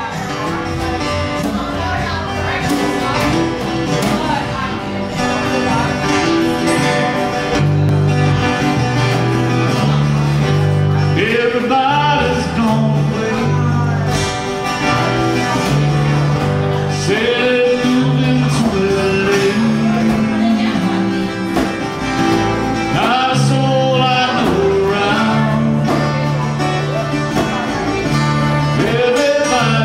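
Live country band playing: acoustic guitars strumming, with an electric bass guitar coming in about eight seconds in, and a male voice singing.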